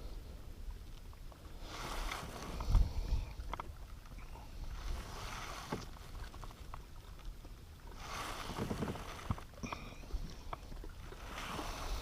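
Water swishing and splashing around a fishing kayak in four separate bouts, with a few light knocks in between.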